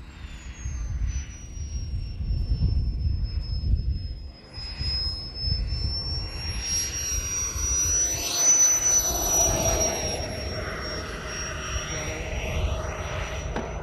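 Jetman 160 turbine of a large RC jet whining in flight during a low pass. The high whine sinks over the first few seconds, then rises and is loudest about eight seconds in as the jet passes close, and stays high after that.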